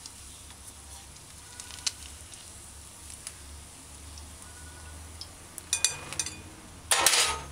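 Hot cooking oil sizzling faintly in a stainless steel frying pan as fried sprat are taken out with a fork, with a few light clicks and a brief louder noise near the end.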